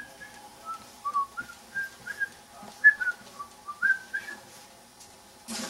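A person whistling a tune: a string of short notes stepping up and down in pitch, about two or three a second. The whistling stops about four seconds in.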